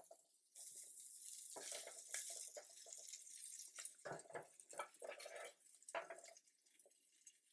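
Andouille sausage pieces sizzling faintly in oil in a stainless steel sauté pan, with repeated scrapes and knocks of a plastic spatula against the pan as the pieces are scooped out.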